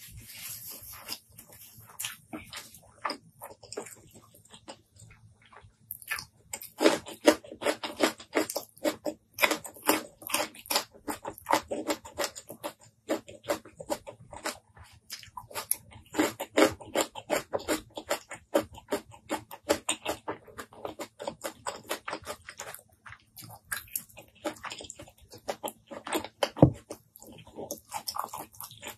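A person chewing and biting food with their mouth, a rapid run of mouth clicks and smacks that is sparse for the first few seconds and dense from about six seconds in.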